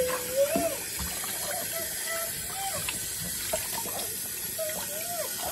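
Tap water running steadily into a stainless-steel sink and a plastic basin while a small dog is rinsed, with a few short wavering pitched sounds over it.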